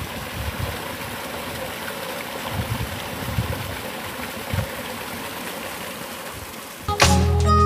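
Small stream running steadily and splashing where it spills over a low drop in a little cascade. Background guitar music comes back in near the end.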